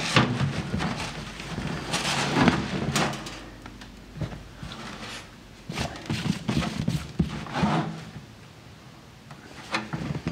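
Old, crunchy fuel cell foam being pulled out of a metal fuel cell can by gloved hands: irregular rustling and crunching, with knocks against the can's sides. It goes quieter near the end.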